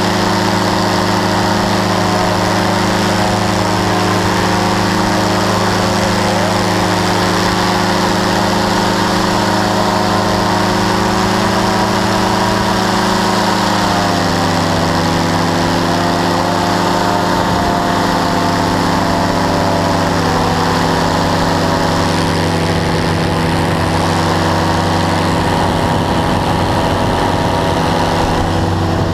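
Powered parachute's engine and propeller running steadily in flight, a loud even drone. About halfway through, the pitch drops a little and then holds.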